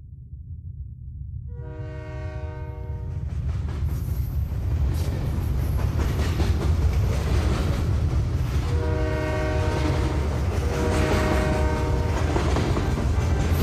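Train approaching with a low rumble that grows steadily louder, sounding a chord-like horn in one long blast about two seconds in and two more blasts near the end.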